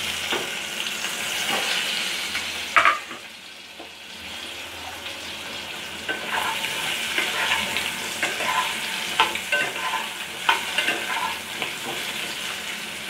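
Boiled potato pieces sizzling in hot oil in a nonstick kadai. The sizzle is strongest in the first few seconds after they go in, with a sharp knock about three seconds in. From about halfway on, a spatula scrapes and clicks against the pan as the potatoes are turned.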